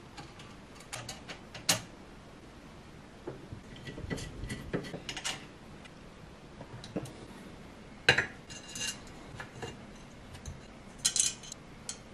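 Metal clicks and clinks from a hex key, screws and aluminium extrusion frame parts of a 3D printer being handled and fitted during assembly. There is a louder knock about eight seconds in and a quick run of bright clinks near the end.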